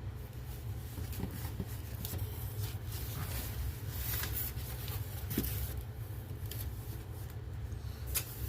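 Faint scrapes, rustles and light clicks of a smoke-alarm box being handled, over a steady low hum.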